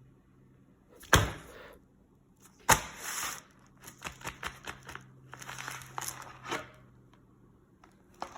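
Packaging and gear being handled: two sharp knocks, each followed by rustling, then a run of small clicks and crinkling rustles, and a couple more clicks near the end.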